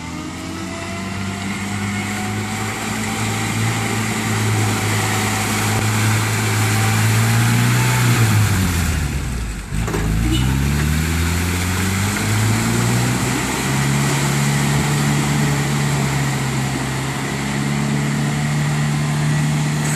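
1983 Toyota pickup's engine revving hard as it churns through deep mud ruts, mud-caked tyres spinning and flinging mud. The revs climb slowly, drop sharply about nine seconds in, then rise again and hold high.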